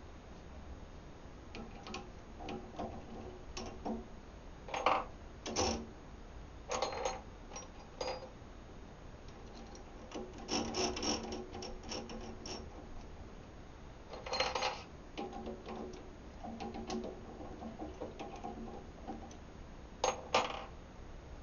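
Metal clicks, clinks and short rattles of drill bits and the drill chuck being handled as a Forstner bit is swapped for a 1/4 inch twist bit. The sound comes in scattered bursts with pauses between, and no drill is running.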